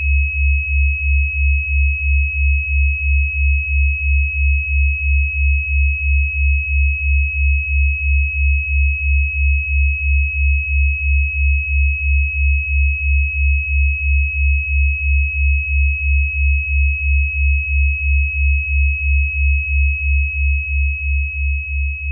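Synthesized healing-frequency tones: a steady high-pitched tone held over a low hum that pulses nearly three times a second. The low pulsing fades near the end.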